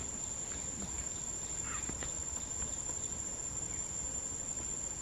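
Insects droning in one steady, unbroken high-pitched tone.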